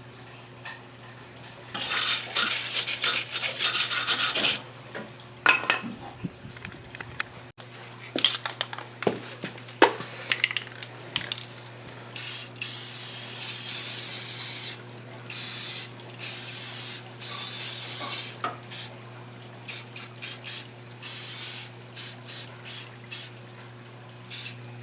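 Aerosol spray paint can spraying in bursts of hiss: a long spray, several more a few seconds long, then a run of quick short squirts near the end. Between the sprays, irregular clicks and rattles.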